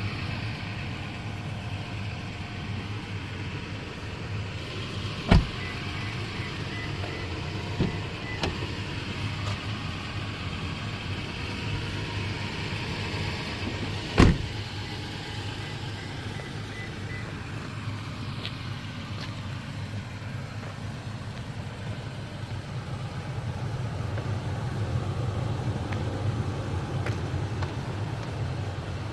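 A vehicle engine running steadily, with two sharp knocks about 5 and 14 seconds in and a lighter one between them.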